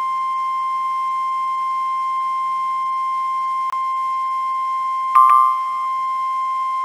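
NOAA Weather Radio warning alarm tone: one steady 1050 Hz tone sounding continuously ahead of a broadcast severe weather warning. About five seconds in, a brief click and a short, slightly higher blip cut across it.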